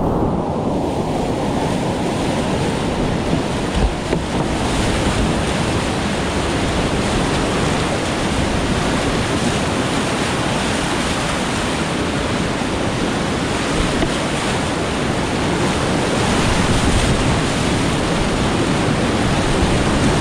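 Steady, loud rushing of whitewater rapids on a steep creek. A couple of low thumps come about four seconds in.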